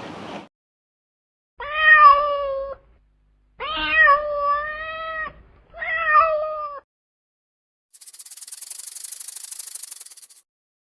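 Domestic cat meowing three times, each call drawn out for about one to two seconds. About two seconds later comes a high, rapid rasping that lasts a couple of seconds.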